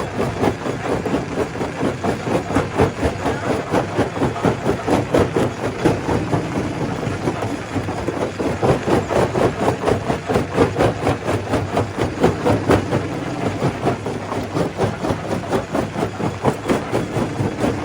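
Stone crusher machine running and crushing rock: a steady, dense clatter of rapid knocks and grinding over a low machine drone, pulsing unevenly in loudness.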